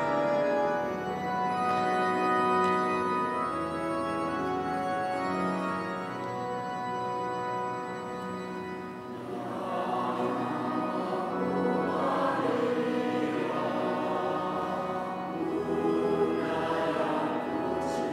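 Slow, held keyboard chords play an introduction, then a two-part mixed choir of men and women comes in about halfway through and sings a hymn over the accompaniment.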